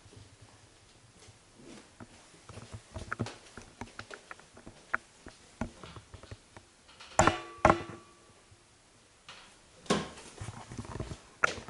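Footsteps and small handling clicks as someone walks through rooms with a handheld camera, with two sharp knocks close together about seven seconds in and another near ten seconds.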